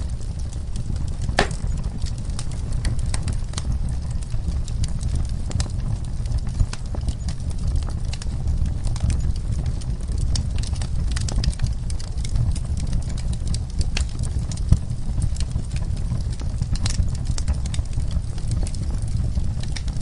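Log fire burning in a fireplace: a steady low rumble of flames with scattered sharp crackles and pops of burning wood, one louder pop about a second and a half in and another near fifteen seconds.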